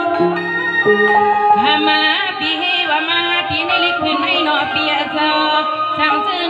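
A Shan song performed with a band: held instrumental notes at first, then a woman's singing voice with a wavering, bending pitch comes in over the accompaniment about a second and a half in.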